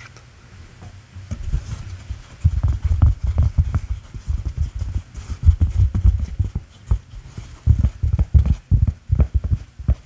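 Fingers tapping and rubbing on a hat held close over the microphone, making a fast, irregular run of dull low thumps that starts about a second in.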